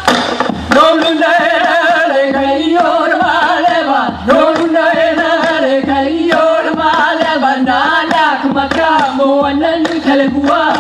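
Hawaiian hula chant (mele) sung by one voice in long, wavering held vowels over a steady low drumbeat.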